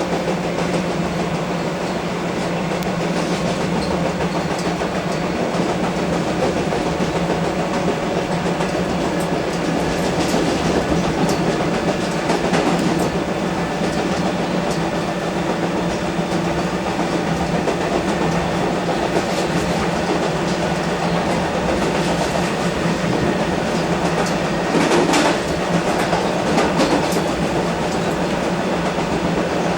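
Comeng electric multiple unit train running along the line: a steady hum and rumble with wheels clicking over the rails, and a brief louder clatter near the end.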